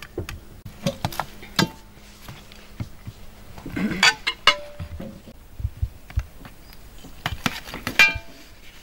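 Knives carving a rack of roasted lamb ribs on a metal tray. Scattered clinks and scrapes of steel on the tray and on ceramic plates, some ringing briefly, and a few dull chops through the ribs. The loudest strikes come about four and eight seconds in.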